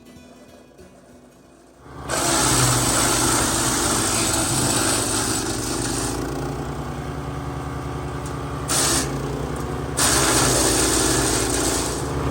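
A MechMaxx wood chipper with a Kohler Command Pro 14 hp engine cuts in sharply about two seconds in, running at speed as branches are fed through and chipped. The loud, noisy chipping eases a little around six seconds in and comes back hard near the end.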